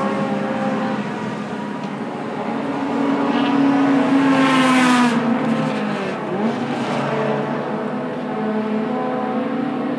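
Toyota Alphard and Vellfire minivans rolling past at low speed, their engines and exhausts running. The sound swells about four to five seconds in, with the pitch rising and then dropping as one van passes close by.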